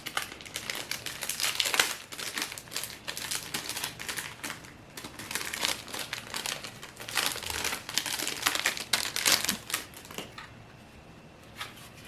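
Packaging crinkling and rustling as it is handled and unwrapped, in dense irregular bursts, then falling quieter near the end with a few light clicks.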